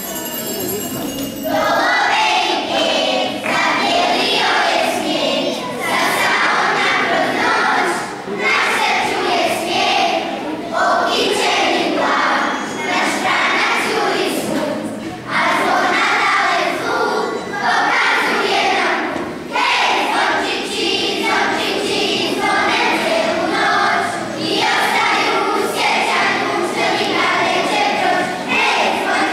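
Children's choir singing together in phrases, starting about a second and a half in.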